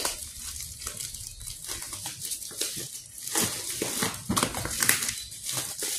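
Plastic mailer bag rustling and crinkling in irregular bursts as it is opened and a wrapped item is pulled out of it.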